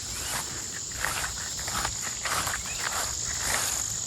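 Footsteps swishing through tall, overgrown grass and weeds, about two steps a second, over a steady high-pitched chorus of insects such as crickets.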